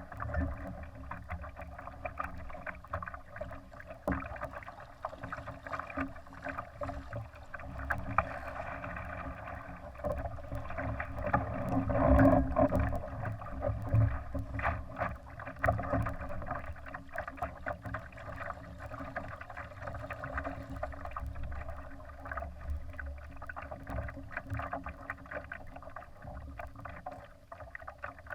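Water splashing and rushing against a Laser sailing dinghy's hull as it moves, with frequent small knocks and slaps. The sound is muffled throughout and swells louder about twelve seconds in.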